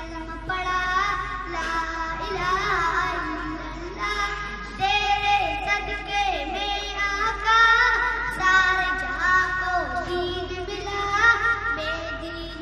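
A young girl singing solo into a handheld microphone, a melody of long held notes that bend up and down in pitch.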